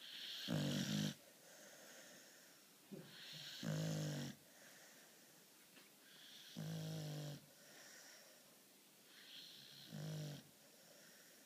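A sleeping beagle snoring: four rasping snores about three seconds apart, with airy breathing between them.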